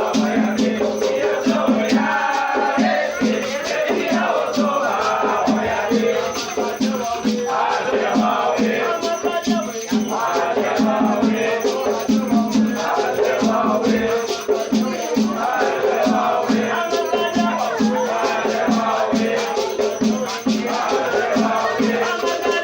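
Batuque ritual music: a drum beaten in a fast, steady rhythm under a continuously shaken rattle, with voices chanting over it.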